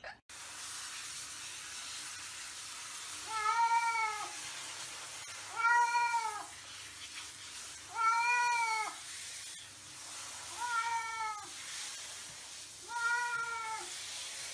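A cat meowing five times while being washed under a shower head. Each call lasts about a second and rises then falls in pitch, with two to three seconds between calls.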